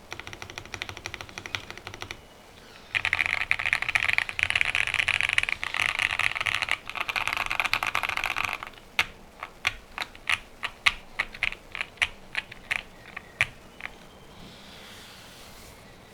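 Typing on a QK65 custom mechanical keyboard with a POM plate, lubed and filmed Gateron Oil King linear switches and GMK Modo 2 keycaps. Quick typing pauses briefly about two seconds in, then comes back as a louder stretch of rapid keystrokes. From about nine seconds in it gives way to separate single keystrokes, about two a second, which stop a couple of seconds before the end.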